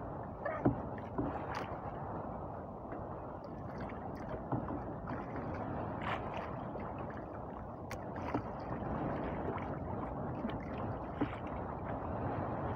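Sea water gurgling and slapping against the hull of a small outrigger boat, with a few faint sharp clicks.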